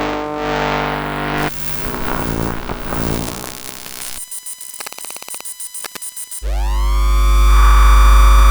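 Electrical-field interference sounds in a quick sequence. First a steady hum with many overtones, then a crackling buzz, then a rapid train of clicking pulses. It ends with a tone sweeping up in pitch over a loud low hum, which cuts off near the end.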